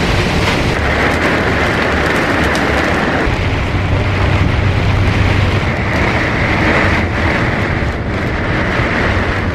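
Heavy rain pelting the windscreen of a moving bus, heard from inside the cabin over steady road and engine noise.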